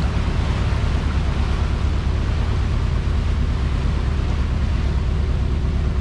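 Tour boat's engine running steadily: a low, constant hum with a fast, even pulse.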